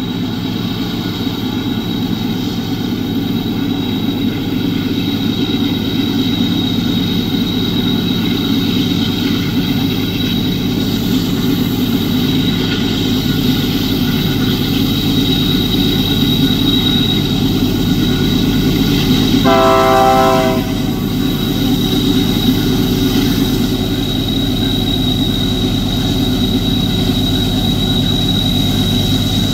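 Loaded iron-ore train's diesel-electric locomotives working hard at full power as they climb toward the camera, a loud, steady engine rumble with a constant high whine. About twenty seconds in, the locomotive's horn sounds one short blast.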